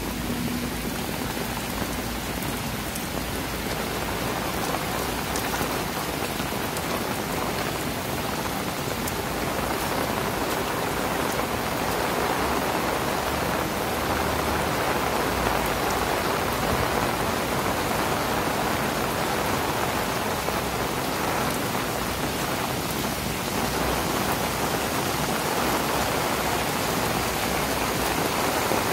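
Heavy rain falling steadily on grass, trees and a puddled path, a steady hiss of rain that grows slightly louder after about ten seconds.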